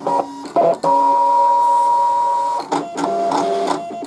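Brother ScanNCut cutting machine making a test cut in vinyl. Its motors whine steadily as the blade carriage and mat move, stopping and restarting at a different pitch between strokes, with a few short clicks in the first second.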